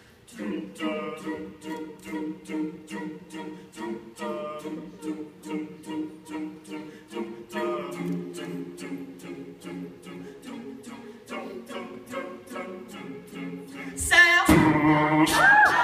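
A cappella group singing sustained chords over a steady beat of snaps, about four a second. Near the end the audience suddenly breaks into loud cheering and whoops.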